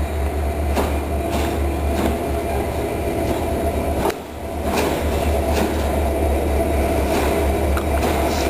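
GM-engined LDE 2100 diesel-electric locomotive rolling slowly toward the listener. Its engine runs with a steady low rumble and a steady mid-pitched hum. Light clicks come at a regular pace, about every two-thirds of a second.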